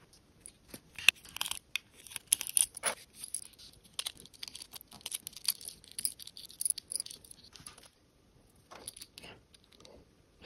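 Close hand-work noises on a freshly cut lamp cable: irregular scratchy rustling and tearing with many sharp clicks, pausing briefly before a few last clicks near the end.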